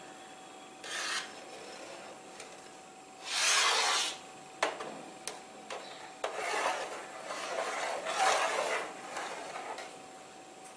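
A metal ladle scrapes and knocks against the side of a large aluminium pot while it stirs freshly curdled milk as the chhena separates from the whey. There are short rasping scrapes, a few sharp taps near the middle, then a longer stretch of scraping in the second half.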